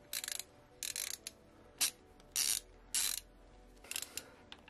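Socket ratchet clicking in about six short runs as its handle is swung back and forth, screwing in a small blanking bolt with a copper gasket.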